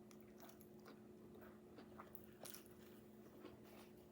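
Faint chewing of brown rice noodles and vegetables, with soft wet mouth clicks about twice a second over a low steady hum.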